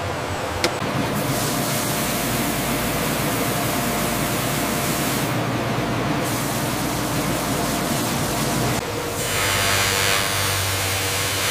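Steady factory machine noise: an even hiss over a low hum. About nine seconds in it changes to a harsher, brighter hiss as a machine head cuts a metal phone frame in a shower of sparks.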